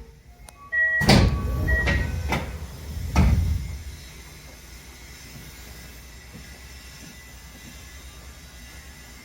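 Tokyo Metro 8000 series sliding passenger doors closing: an electronic door chime sounds while the doors shut with loud thuds about a second in and again around three seconds in. This is followed by a steady low hum of the train standing before departure.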